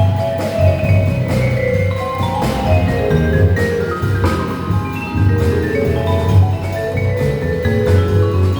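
A jazz band playing live: vibraphone lines of quick mallet-struck notes over a bass line and drums with cymbals.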